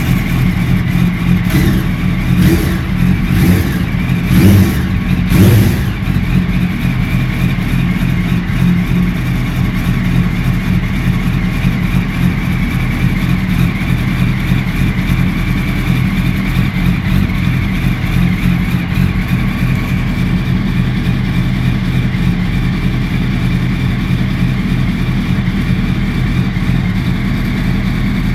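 A 2008 Yamaha R1's inline-four engine through an Akrapovic exhaust, blipped several times in quick succession in the first six seconds, then idling steadily.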